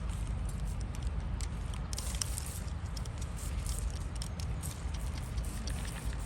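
Hoof knife paring a cow's hoof: many quick, crisp scrapes and clicks over a steady low hum.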